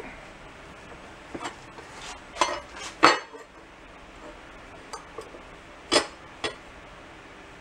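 A steel mower blade clanking against the bench vise and the metal workbench as it is taken out of the vise and laid flat: about five sharp metal knocks, the loudest about three seconds in.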